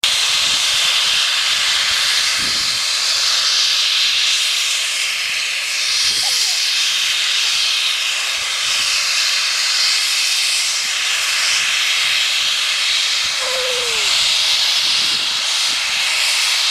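Steam locomotive hissing steadily as steam vents from its open cylinder drain cocks while it approaches slowly.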